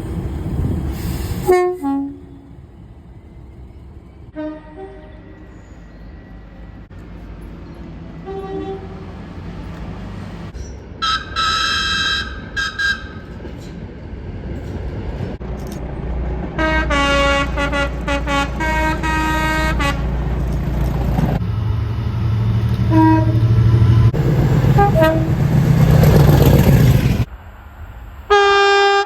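Train horns sounding in a series of blasts, some short toots and some longer chords of several tones at once, over the low rumble of a passing train. The sound cuts off suddenly a couple of times between horns.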